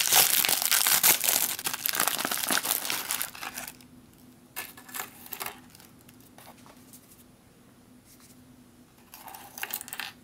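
An MRE's foil-laminate peaches pouch crinkling and rustling loudly as it is opened for the first three and a half seconds, then a few shorter, quieter rustles of the pouch and its freeze-dried peach slices.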